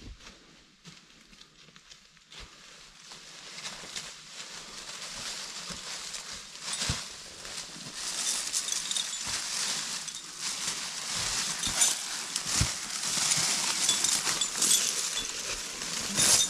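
Footsteps crunching and rustling through deep dry fallen beech leaves on a slope, with scattered twig snaps; the crunching grows louder from about a quarter of the way in and is loudest over the second half.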